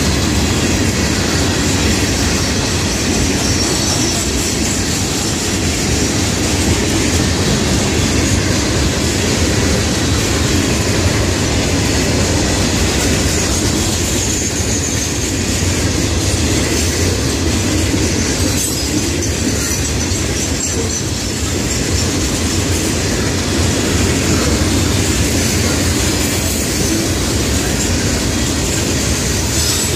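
Freight cars of a Florida East Coast Railway train rolling steadily past: steel wheels running on the rails with a dense, continuous clatter.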